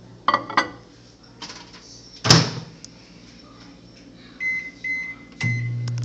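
Countertop microwave oven: a few handling clicks, then a loud bang as the door is shut about two seconds in. Three short keypad beeps follow, and near the end the oven starts running with a steady low hum.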